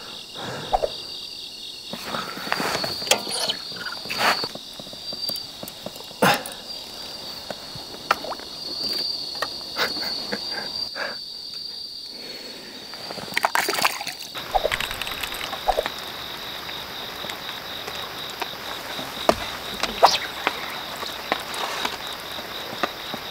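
Crickets chirping steadily in a high, even drone, with scattered sharp clicks and knocks. About halfway through, a steady hiss comes in and stays.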